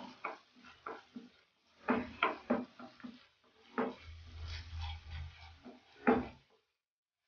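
Wooden spoon stirring thick tomato sauce in a frying pan, scraping and knocking irregularly against the pan, with the loudest knock about six seconds in.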